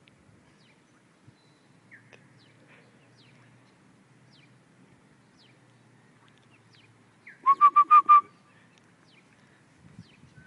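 Duckling peeping: faint, short, falling peeps repeated about every half second. About seven and a half seconds in, a loud run of five quick pitched calls.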